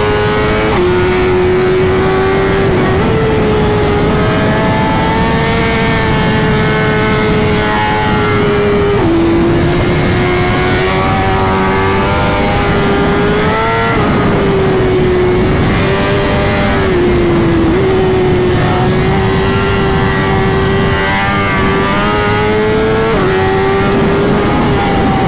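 BMW S1000RR's inline-four engine running at high revs under way, its pitch dropping suddenly and climbing back every few seconds as the rider shifts and works the throttle. Heavy wind rush underneath.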